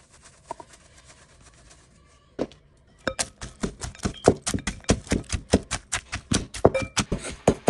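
Wooden pestle pounding deep-fried fish with chili and garlic in a metal bowl: one knock about two and a half seconds in, then quick, even pounding at about four to five strokes a second from about three seconds in.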